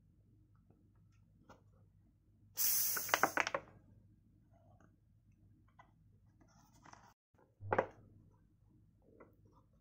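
Gas hissing out of a plastic drink bottle as its screw cap is twisted open: a loud hiss with crackling clicks, about a second long, from pressure built up by fermenting banana peels inside. A second short burst comes near the end.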